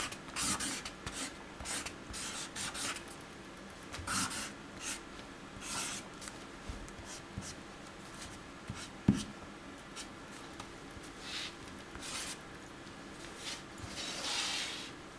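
Marker pen strokes scratching across sketchbook paper: quick short strokes in a dense run at first, then sparser, with a longer swish near the end. One sharp click about nine seconds in.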